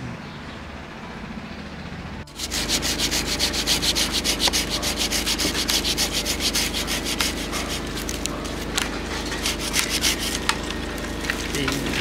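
A saw cutting through a peach tree branch during pruning: a fast, steady rasping of strokes through the wood that starts suddenly a couple of seconds in.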